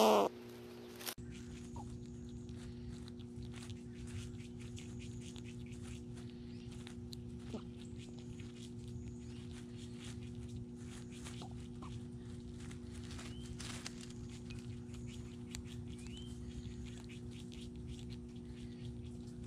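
A loud harsh bird call ends right at the start. After that comes a steady low hum with a few constant tones, under many small ticks and rustles and a few faint short chirps.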